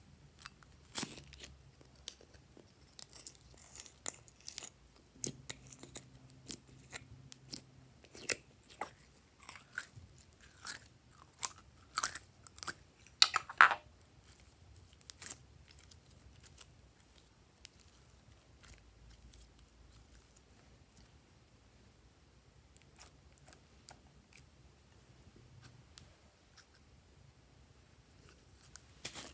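Purple glitter slime being squeezed out of a plastic dome container and stretched by hand, giving irregular sticky pops and clicks. The pops are densest and loudest about halfway through, then thin out to faint handling.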